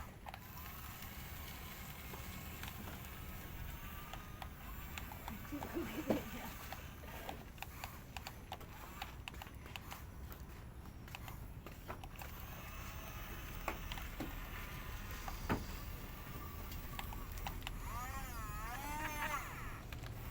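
Heavy machine engine running with a steady low rumble, with scattered knocks and clanks; a warbling, chirping call sounds near the end.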